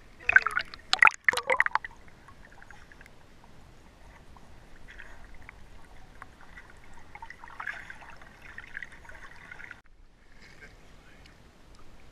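Lake water splashing and lapping around a camera at the waterline as a dog swims: a burst of loud splashes in the first two seconds, then softer steady gurgling.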